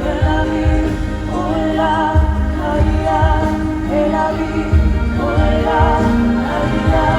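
Music with a singing voice: wavering, held sung notes over sustained bass notes and a steady low beat.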